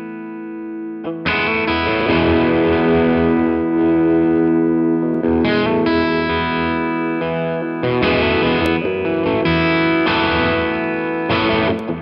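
Donner Hush X headless electric guitar played through a Mooer Prime P2 multi-effects unit, on an overdriven amp model with delay and reverb. A held chord rings and fades, then new chords are struck about a second in and again around five, eight and eleven seconds, each ringing on.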